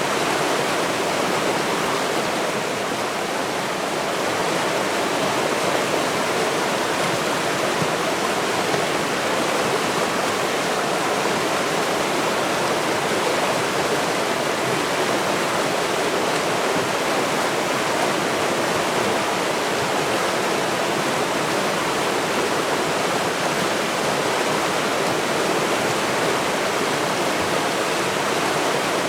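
River water rushing steadily, an even, unbroken sound with no lulls.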